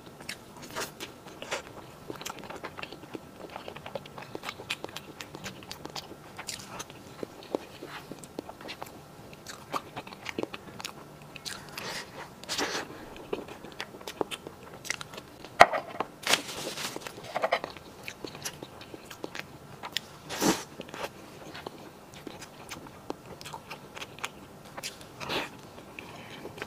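Close-miked eating sounds: wet chewing and lip smacks on a mouthful of soft cream cake, with a metal spoon scooping and clicking against the plate. The sounds come as scattered short clicks and smacks, a few louder than the rest.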